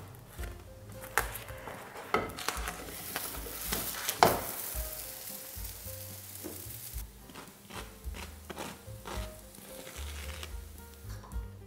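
Oil sizzling in a frying pan under a loaf of bread baking on the hob, with a few sharp knocks, the loudest about four seconds in. Soft background music underneath.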